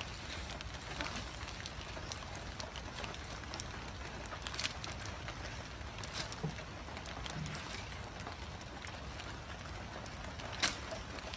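Light rain hissing steadily with scattered ticks, while an Asian elephant rustles and swings leafy branches as it feeds. A couple of sharper snaps stand out, one near the middle and one near the end.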